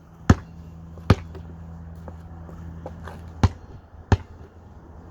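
Basketball bouncing and striking hard surfaces during a shot attempt: four loud, sharp thumps, with a few fainter knocks between them, over a steady low hum.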